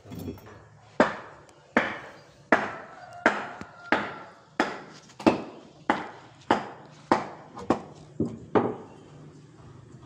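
A steady series of about a dozen hard strikes on wood, roughly one every two-thirds of a second, each ringing off briefly; they start about a second in and stop near the end.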